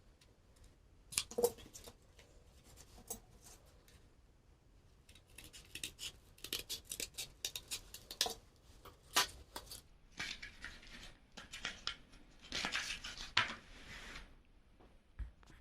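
Cardboard being cut by hand: a series of crisp snips, irregular at first and then in quick runs, with longer rasping strokes later on.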